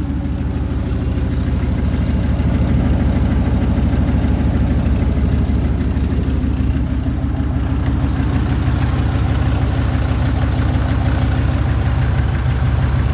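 Dodge Ram pickup engine idling steadily, with a loud, raw exhaust because the muffler is missing.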